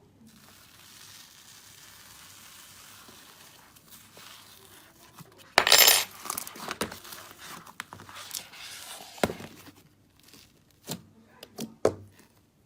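Slime being worked by hand: a faint soft hiss, then a loud crackling squish about six seconds in, followed by scattered sharp clicks and pops.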